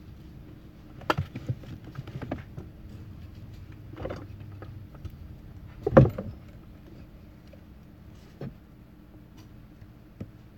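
Several scattered knocks and clicks, the loudest about six seconds in, over a steady low hum.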